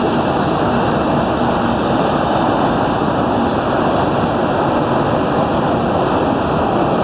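Jet aircraft engines running with a loud, steady rushing noise.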